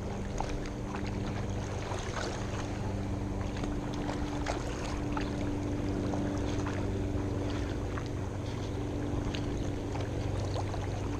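Steady rush of fast water in the tailwater below a hydroelectric dam, with a low steady hum under it and scattered light clicks as a baitcasting reel is cranked.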